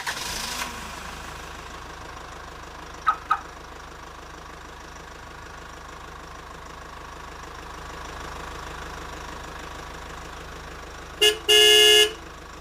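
Toy truck's electronic horn: a short toot and then a longer, loud honk near the end, over a steady low hum, with two brief chirps about three seconds in.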